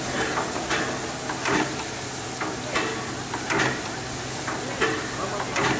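Narrow-gauge steam tank locomotive of the Harz railways standing at a water crane while its tanks are filled: a steady hiss with a faint low hum, broken by irregular crackles and knocks about once a second.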